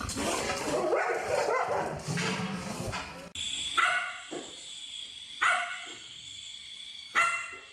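A dog barking: three single, sharp barks about a second and a half apart over a steady high hiss, after a denser jumble of sound in the first few seconds.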